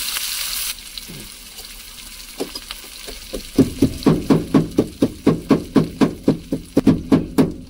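Onions frying in hot oil with a loud hiss that drops away under a second in. From about three and a half seconds, a steady run of quick pounding strokes, about four or five a second: mustard seeds, cumin and chilli being crushed into a paste with a pestle in a glass.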